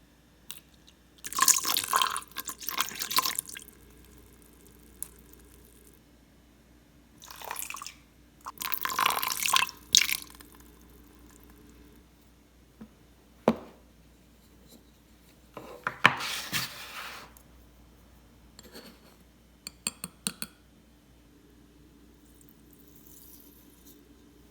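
Liquid being poured into a bowl in several short pours of a second or two each, with sharp clinks and a run of small clicks from utensils and containers.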